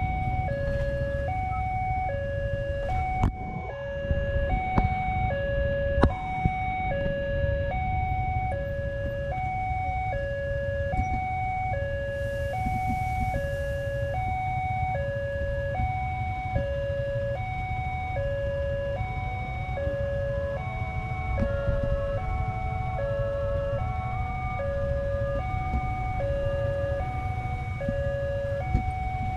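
Railway level-crossing warning alarm sounding: an electronic two-tone bell that alternates high and low, each note about 0.7 s long, warning that a train is coming. Under it is a steady rumble of waiting road traffic, with a few sharp knocks about three to six seconds in.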